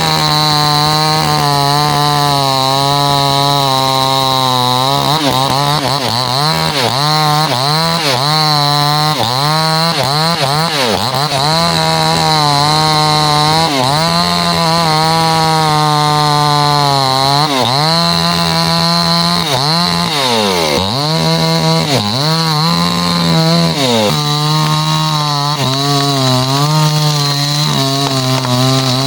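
Two-stroke chainsaw running at high revs while cutting through a tree trunk, its engine pitch repeatedly dipping as the chain loads up in the wood and then climbing back.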